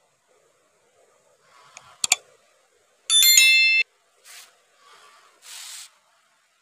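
Subscribe-button sound effects: a sharp mouse click about two seconds in, then a bright bell ding ringing for under a second, followed by three soft swishes.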